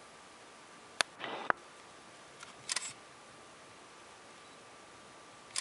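Clicks from a handheld camera being operated: a sharp click about a second in, a brief whir, and a second click half a second later, then a short cluster of clicks. A faint steady high tone sits under light hiss.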